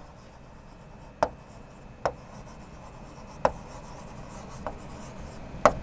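Chalk writing on a blackboard: a faint scratching with five sharp taps, roughly one a second, as strokes land on the board.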